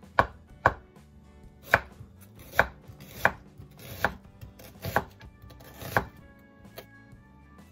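Kitchen knife slicing shiitake mushroom and onion, each stroke ending in a sharp knock on a wooden cutting board: about eight unhurried cuts, roughly one a second, with a last faint one near the end.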